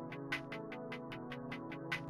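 Background music with a steady beat: electronic-sounding sustained notes over quick, regular percussive ticks, about four or five a second.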